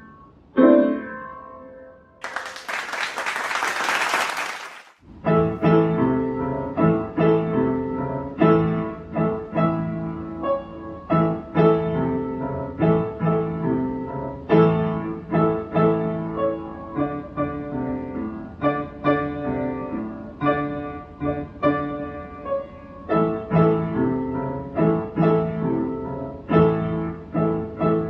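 A young child's upright piano piece ends on a few fading notes, and a loud burst of noise follows for about three seconds. Then another young child plays a simple beginner piece on an upright piano, in separate notes about two a second.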